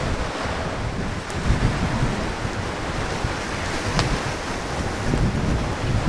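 Sea surf washing on the shore with wind buffeting the microphone, a steady rush; two faint sharp clicks, about a second in and again about four seconds in.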